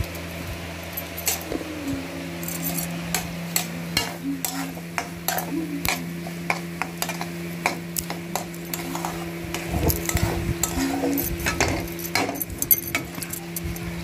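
Metal spatula stirring and scraping upma around a metal kadai, with frequent sharp clicks of the spatula against the pan over a steady low hum.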